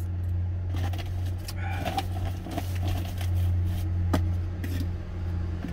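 Stainless-steel lunchbox containers being handled, with a few light clicks and clinks of the metal tins and lids and a sharper click about four seconds in, over the steady low hum of the idling truck heard inside the cab.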